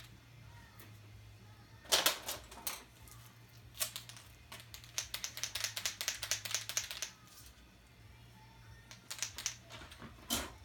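Art pens scratching and tapping on paper in short bursts, with a run of quick strokes lasting about two seconds in the middle, over a low steady hum.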